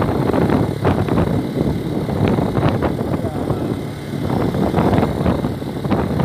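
Motorcycle in motion: wind buffeting the microphone, rising and falling in level, over the low, steady running of the bike's engine.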